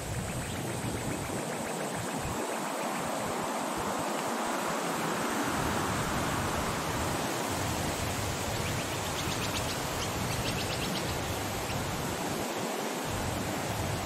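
A steady, even rushing noise with no clear pitch or rhythm.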